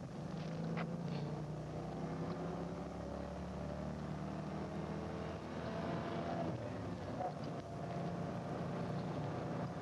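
Patrol car's engine running hard at highway speed with tyre and road noise, heard from inside the car during a pursuit; a steady drone with small rises and falls in pitch.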